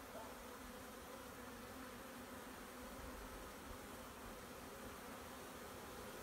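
Honeybee swarm buzzing: a soft, steady hum of many bees.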